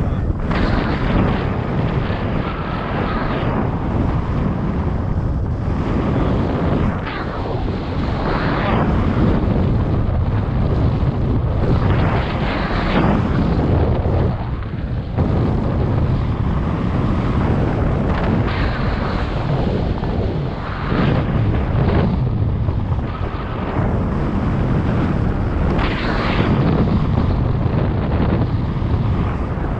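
Rushing airflow buffeting the camera microphone during a paraglider flight: loud wind noise that swells and eases every few seconds.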